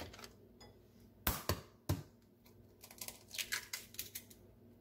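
Light, sharp clicks and taps of kitchen items being handled on a countertop: a few single clicks, then a quicker run of them about three seconds in.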